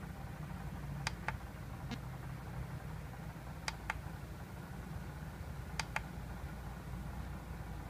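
Buttons on a small Bluetooth speaker-radio pressed and released: a handful of short sharp clicks, mostly in quick pairs, about a second in, near four seconds and near six seconds, over a low steady hum.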